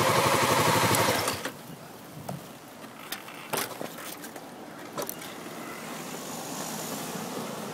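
Motorcycle engine idling, then shut off about a second in. Afterwards a few sharp clicks and knocks.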